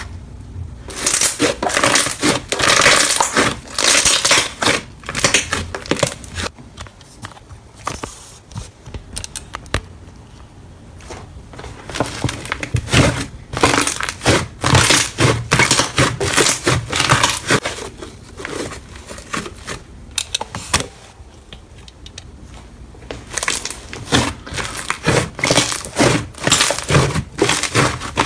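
Slime being squeezed and pressed by hand, making dense crunchy crackling that comes in bursts with quieter stretches between.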